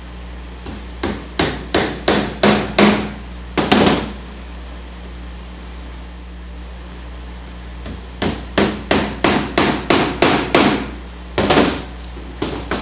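Tack hammer driving tacks through canvas into a wooden stretcher bar: a quick run of about eight sharp blows, a pause of about four seconds, then another run of about a dozen.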